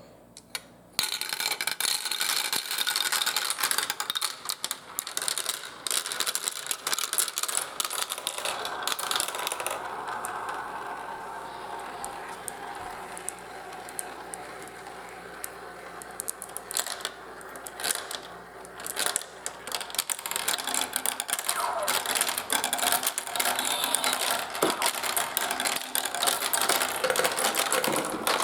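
Marbles rolling and clattering down a marble run: a dense stream of small clicks and rattles that starts about a second in.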